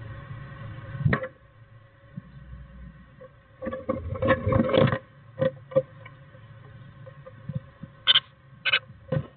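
A great tit's claws scratching and tapping on the wooden nest box as it climbs in through the entrance hole and onto the nest: a burst of scrabbling about four seconds in, then a few sharp single taps. A faint steady hum runs underneath.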